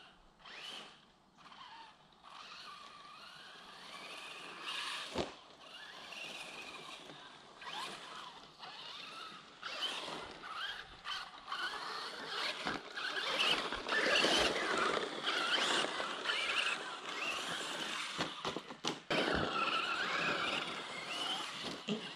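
Traxxas Slash 4x4 RC car driving on a sand track: its electric motor and geartrain whine, the pitch rising and falling with the throttle, louder from about ten seconds in, with a few sharp knocks as it runs over the track.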